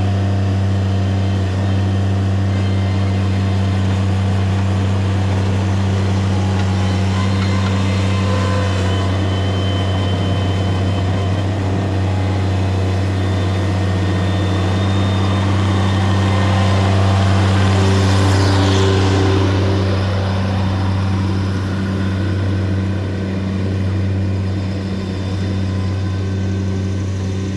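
Engine of earthmoving equipment running steadily with a deep, even hum that swells slightly about two-thirds through, where a brief high-pitched whine rises and falls.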